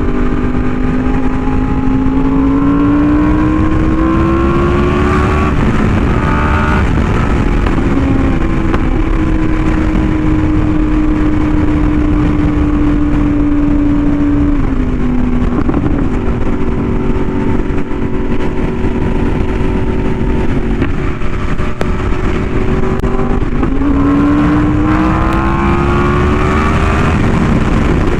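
Yamaha YZF-R1M's crossplane inline-four running through an SC Project exhaust while riding: the engine pulls up in revs, drops as it shifts up, cruises at a steady pitch for a long stretch, then climbs again near the end before another shift.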